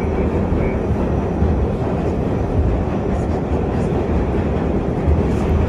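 R68 subway car running through a tunnel, heard from inside the car: a loud, steady rumble of wheels on rail and car noise.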